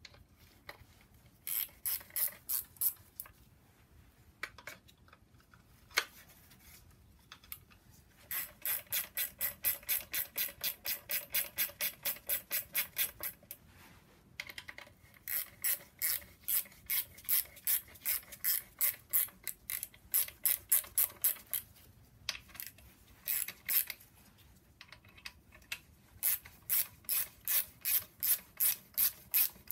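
Hand ratchet wrench clicking in runs of rapid, even clicks, about three to four a second, with short pauses between runs, as bolts are turned out of the engine support bracket.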